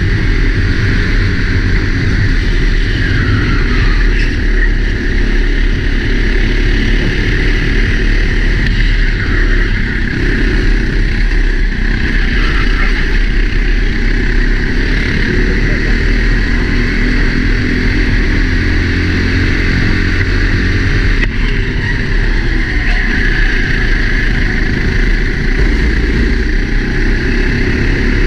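Four-stroke Sodi racing kart engine running hard, heard onboard from the driver's helmet camera, its pitch rising and falling a little with the throttle through the lap.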